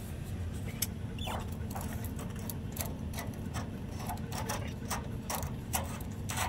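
Garden hose coupling being threaded onto a water heater's drain valve: a run of short, irregular clicks and scrapes over a steady low hum.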